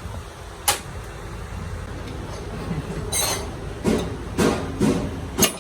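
Metal knocks on gearbox parts: one sharp click under a second in, then a run of ringing knocks about two a second in the second half.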